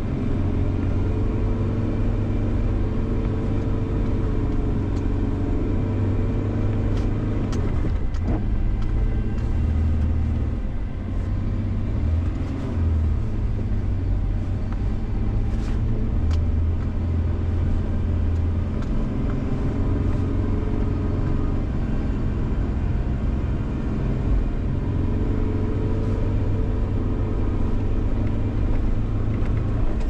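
A 1994 Ford Explorer's 4.0-litre V6 engine running under load as the truck pushes through deep, packed snow, the revs rising and falling. A few faint, brief knocks come through around the middle.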